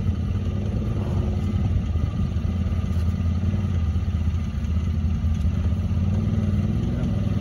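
Side-by-side UTV engine running under load as it climbs slowly up a steep slickrock chute, a steady low drone.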